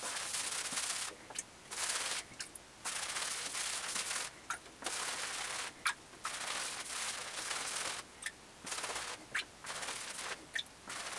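Synthetic shaving brush being worked in circles over shaving-soap lather on a stubbly face: a hissing scrub in bursts that stop and start every second or so, with a few short ticks.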